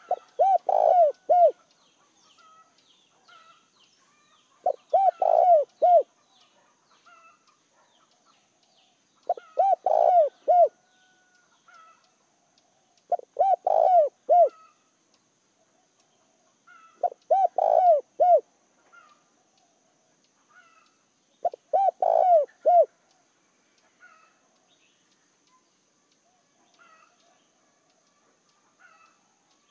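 A caged decoy spotted dove cooing: six short phrases of three or four coos each, about one every four seconds, falling silent about two-thirds of the way through.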